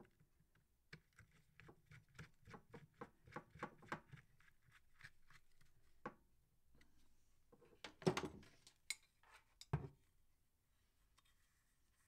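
A small hand tool and parts handled on a workbench while a motorcycle tail-tidy bracket is assembled: a run of quick, light clicks, then a short clatter and a single knock later on.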